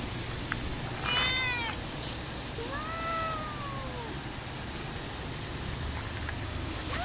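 A cat meowing twice: a short call about a second in, then a longer meow about two and a half seconds in that rises and falls.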